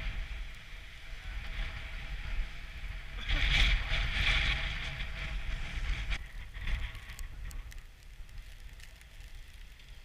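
Skis hissing and scraping over groomed snow, with wind buffeting the microphone. A louder, longer scrape about three to five seconds in as the skis skid to a stop, then quieter.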